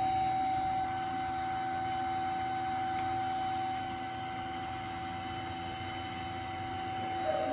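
Studer S20 CNC cylindrical grinder running with a steady high whine over a low hum, and one faint click about three seconds in.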